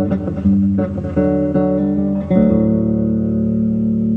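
Electric bass guitar playing a run of plucked notes, then a note ringing out and held from a little past halfway.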